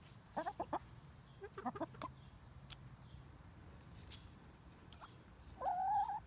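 Hens clucking softly in short calls, two little clusters early and a longer call near the end, with sharp taps of beaks pecking at a frozen corn treat.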